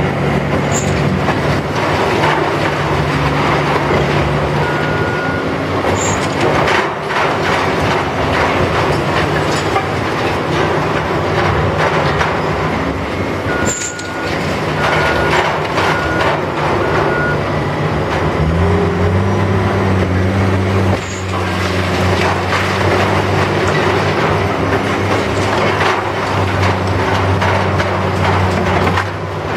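Diesel demolition machinery running, a heavy steady engine drone that steps up in pitch about eighteen seconds in as the engine works harder. A reversing alarm beeps a few times around the middle.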